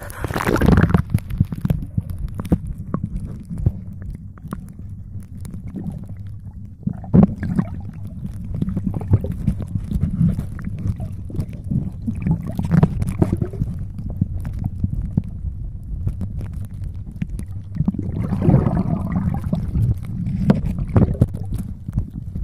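Water sloshing and gurgling around a submerged camera, heard as a muffled low underwater rumble. It surges into louder splashing and bubbling as the camera plunges in at the start, and again several times, most strongly about eighteen to twenty-one seconds in.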